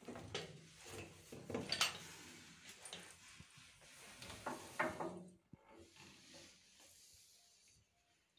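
Light knocks, clinks and scraping with rustling as someone moves about inside the steel hull of an old tank. The sounds come thick and irregular for about five seconds, then thin out to faint scattered ticks.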